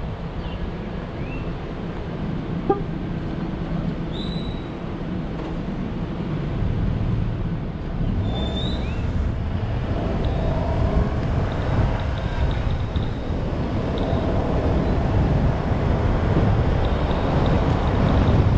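Moving vehicle on the road: a steady low rumble of engine, tyres and wind that grows gradually louder. There is a sharp click about three seconds in and a few short, high, rising chirps.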